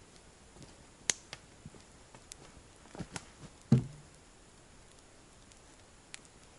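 Scattered light knocks and clicks of wood being handled at a log frame, with one heavier thud a little before four seconds in.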